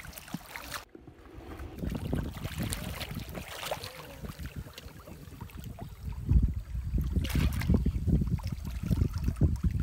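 Wind buffeting the microphone over the splashing and sloshing of shallow stream water as hands grope in it along the bank, louder from about six seconds in.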